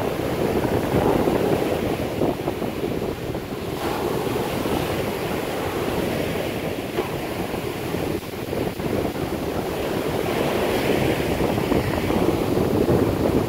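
Rough ocean surf breaking and washing up a sandy beach as a steady rushing wash, with wind buffeting the microphone.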